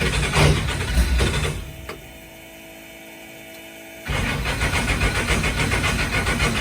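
Big-block Chevy V8 of a race mud truck running loud and rough. About two seconds in it drops to a much quieter steady hum for two seconds, then comes back loud.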